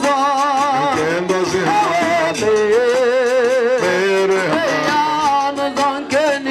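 Singing of an Igbo worship song: one voice with a wide vibrato carrying a melody of long, wavering held notes.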